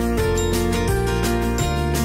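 Instrumental background music with a steady beat and held notes.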